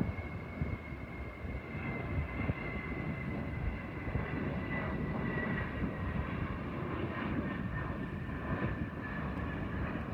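Jet aircraft engines running: a steady low rumble with a thin turbine whine that slowly falls in pitch.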